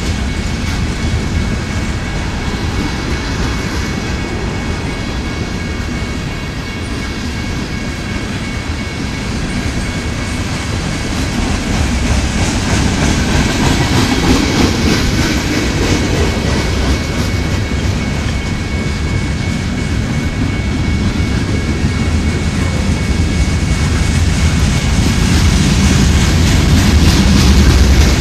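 Freight train cars, tank cars and covered hoppers, rolling past: a steady rumble of steel wheels on rail with clickety-clack over the joints and a faint high steady ring. The sound grows louder toward the end.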